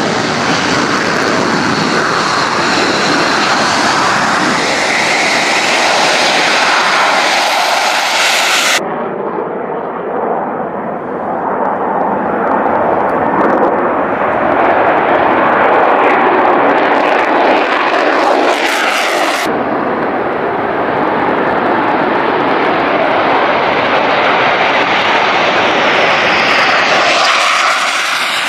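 Jet engine noise of F-35 fighters, each with a single Pratt & Whitney F135 turbofan. First a jet taxiing, with a high whine over the rumble. Then a jet taking off and climbing away, with abrupt changes in the sound where the shots cut, about nine and nineteen seconds in.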